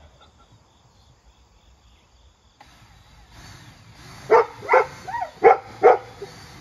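A dog barking four short, loud barks in two quick pairs, a little past the middle.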